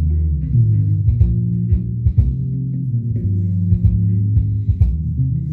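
Music played through a Klipsch ProMedia 2.1 subwoofer: a deep, moving bass line with short percussive knocks, and almost nothing in the upper range.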